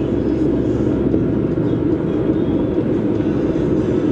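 Steady low rumble of car road and engine noise heard from inside the cabin while driving.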